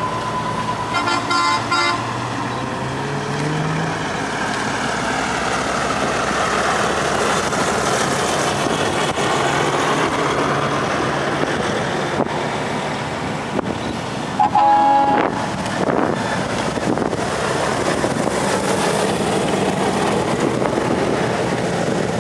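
Convoy of heavy trucks driving past, diesel engines pulling and tyres on the road, with one engine rising in pitch as it accelerates. Short horn toots about a second in and a longer horn blast about two-thirds of the way through.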